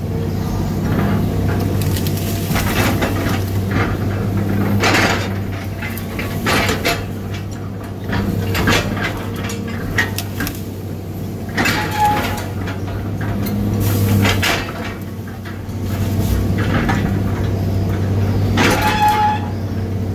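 Excavator engine running steadily, heard from the cab, with repeated clunks and knocks as the bucket and thumb grab and break up brush. A short high squeak comes twice, about two-thirds of the way in and near the end, from a pin in the stick linkage that squeaks like that all the time.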